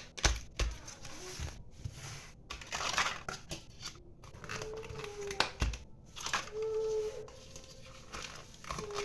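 Plastic packaging crinkling and rustling as small containers of chili sauce are handled and packed, with a few knocks of the containers being set down. A short hum comes and goes in the second half.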